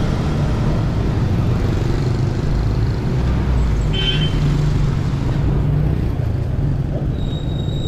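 Street traffic passing close by: cars and motorcycles running along the road in a steady engine-and-tyre rumble, with a brief high chirp about four seconds in.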